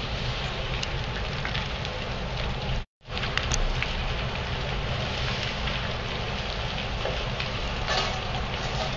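Burning facade insulation on a tower block crackling: a steady hiss with scattered sharp crackles, over a low rumble of wind on the microphone. The sound cuts out for a moment about three seconds in.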